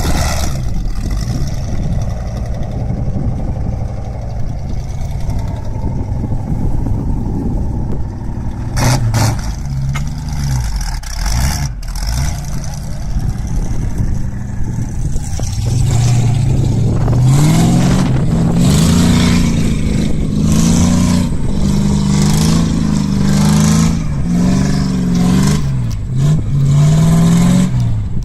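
Engine-driven wood chipper running loud. In the second half its pitch dips and rises over and over, with frequent sharp cracks and clatter as wood goes through.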